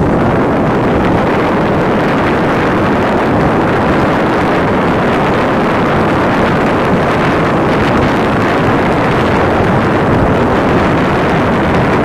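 Farm tractor's diesel engine running steadily under load as it tills a flooded paddy field, with wind noise on the microphone.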